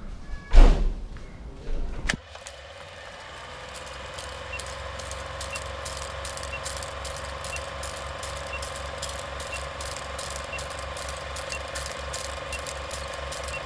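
Old film projector countdown sound effect: a steady projector whir with rapid clicking of film running through the gate, and a short high beep about once a second as the leader counts down. It starts about two seconds in, after a brief loud sound.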